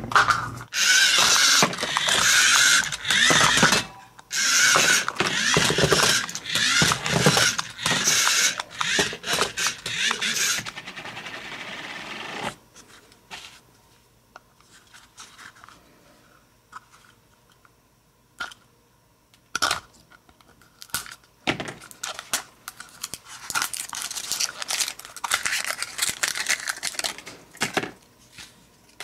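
A toy remote-control car's motor and wheels run in loud bursts for about the first twelve seconds, with knocks as it hits plastic capsules. Then come quieter plastic clicks and scraping as a hard plastic toy capsule is pried open with a small tool, with rustling near the end as the figure is pulled out.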